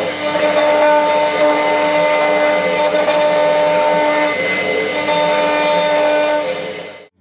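CNC router spindle with a small engraving cutter machining brass: a steady whine with several tones that come and go over a cutting noise. It cuts off suddenly near the end.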